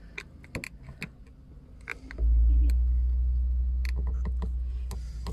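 A phone camera being adjusted in its mount: small clicks and knocks, then about two seconds in a deep rumble of handling noise on the microphone that fades slowly.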